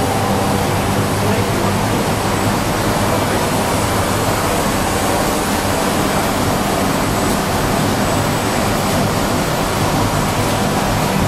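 Morbidelli CNC woodworking machining centre running: a steady rushing machine noise with a low hum underneath.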